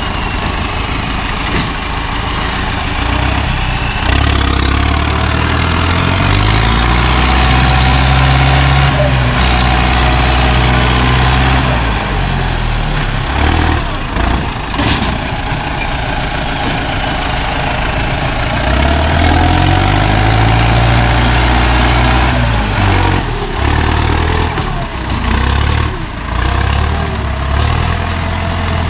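Heavy diesel engine running and revving up twice: from about four seconds in it holds higher revs for several seconds, then again from about nineteen seconds in. A faint rising whistle comes with each rev-up, and there is one sharp knock about fifteen seconds in.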